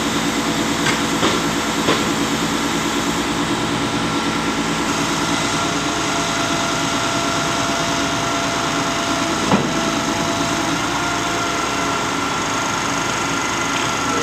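Concrete pump's engine and machinery running steadily, with a few short knocks near the start and a louder one about nine and a half seconds in.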